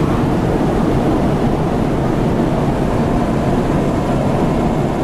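Steady road noise inside a car cruising at highway speed: an even rumble of tyres, engine and wind.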